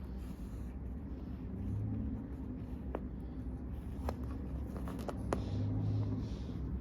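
A cat purring: a low, steady rumble that swells twice, with a few faint small clicks.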